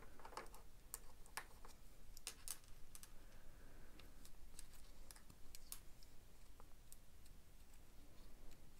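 Faint, irregular small clicks and taps of hands handling plastic parts: a rubber O-ring being fitted onto a plastic screw cap.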